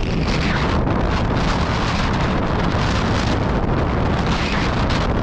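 Wind buffeting the microphone: a loud, steady rushing rumble that covers everything else.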